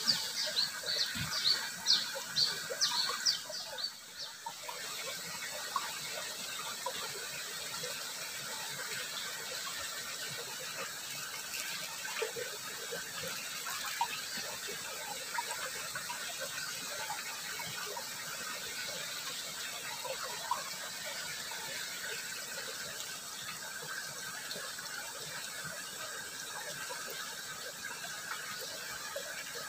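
Steady flowing water of a small ditch rippling past. For the first few seconds it is overlaid by a run of short, high-pitched squeaks, about two or three a second.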